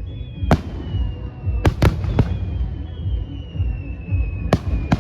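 Aerial fireworks bursting: about six sharp bangs at irregular intervals, two of them close together near the middle.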